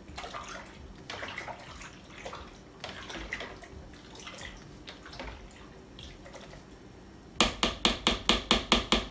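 A spoon and spatula stirring and scooping in a plastic bucket of mead must with cherries, making faint wet swishes and small clicks. Near the end comes a rapid run of sharp knocks, about six a second, as the utensil strikes the bucket.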